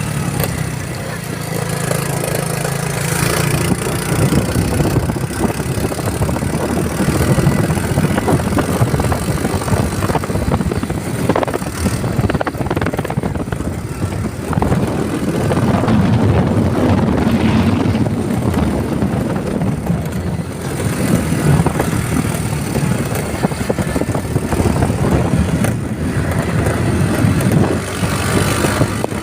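A motor vehicle on the move: steady engine and road noise, rising and easing slightly over time.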